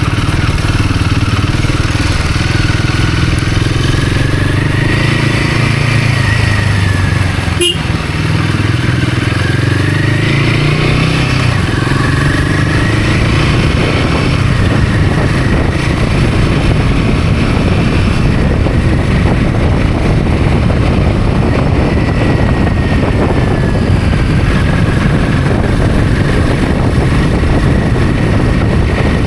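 Royal Enfield Himalayan 450's single-cylinder engine running on the move. Its pitch rises and falls through the first half as the throttle opens and closes, then holds steadier. There is a sharp click and a brief dip in level about eight seconds in.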